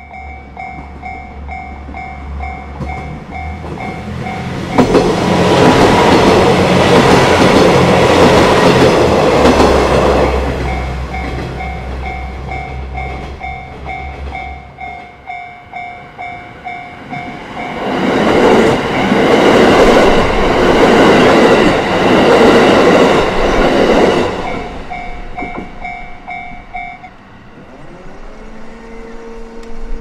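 Japanese level-crossing warning bell dinging steadily while two trains rush past on the Yamagata Shinkansen line, one after the other, each pass lasting about six seconds. The bell stops a few seconds before the end as the crossing clears.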